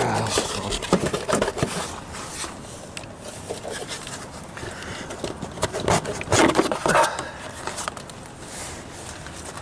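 Plastic cover of a 2002 Renault Megane's engine-bay fuse and relay box being wrestled and prised loose by hand: scattered scrapes and clicks, with a louder scraping rustle about six to seven seconds in.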